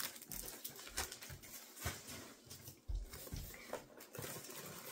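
Plastic packaging rustling and crinkling as items are handled in a cardboard box, with a few soft bumps against the box and table.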